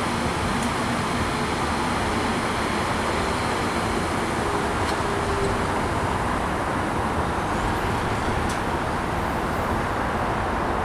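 Electric commuter train close by, a steady rumble and hiss; a few faint tones fade out in the first few seconds.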